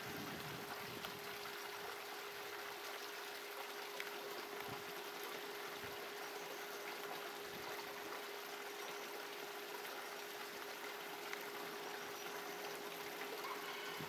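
Shallow rocky stream trickling and running over stones, a steady even rush of water, with a faint constant hum underneath.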